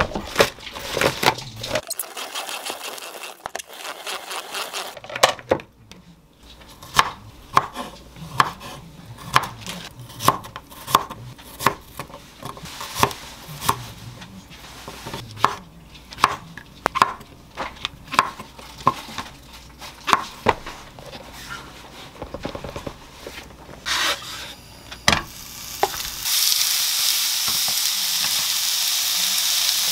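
Kitchen knife slicing garlic cloves on a wooden cutting board: a slow, uneven run of sharp knocks, about one or two a second. Near the end, raw pork belly laid in a hot frying pan sets up a steady sizzle.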